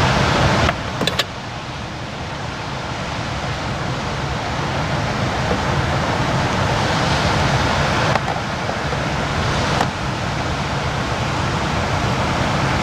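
Steady rush of surf from rough sea waves, slowly swelling. A few sharp clicks come from handling a small electric rice cooker's lid and pot, the clearest about a second in.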